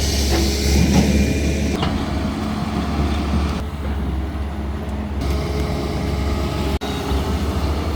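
Diesel engines of CAT hydraulic excavators running steadily with a low drone, with scattered light clanks over it and a momentary break about three-quarters of the way through.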